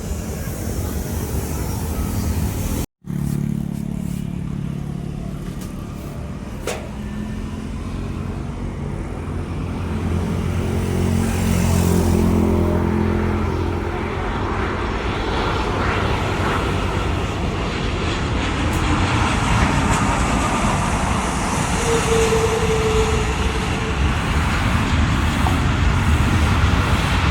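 Steady low engine rumble, with a low drone that swells partway through and then settles. The sound cuts out for an instant about three seconds in.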